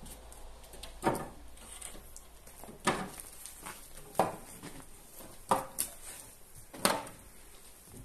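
A series of five sharp knocks or clunks, each ringing briefly, spaced irregularly about one and a half seconds apart.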